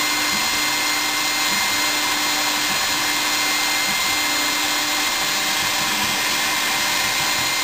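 Servo-driven CNC milling machine cutting: the spindle and cutter run with a steady, loud rushing noise and a constant high whine. Under it, a lower hum breaks off and restarts about once a second.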